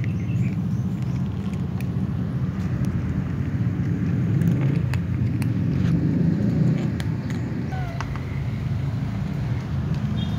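Cats eating dry kibble off pavement, with scattered faint clicks of crunching, over a steady low rumble.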